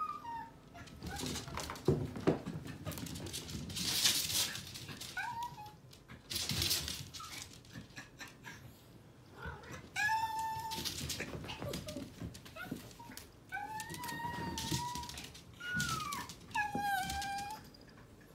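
Small dog whining and whimpering in several drawn-out, wavering calls, mostly in the second half. Earlier come a few short hisses and sharp knocks as the animals scuffle on the floor.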